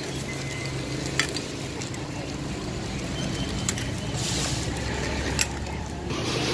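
Plastic jelly cups clicking against each other and a thin plastic bag crinkling as the cups are bagged, a few sharp clicks over a steady low hum.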